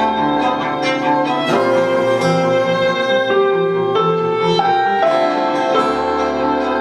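Instrumental chamber music: a violin playing sustained melodic notes over piano, the notes shifting every second or so.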